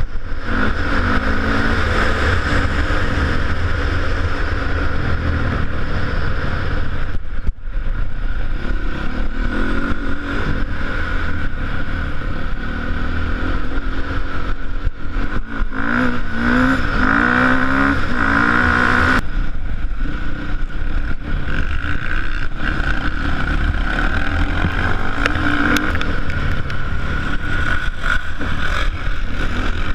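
KTM off-road motorcycle engine running under way, its pitch rising and falling as the throttle is opened and closed, over a dense low rumble.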